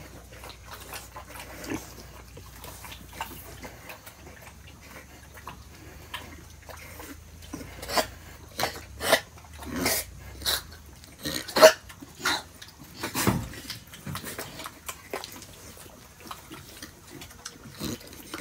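Pigs grunting and squealing in short, irregular calls, busiest and loudest through the middle.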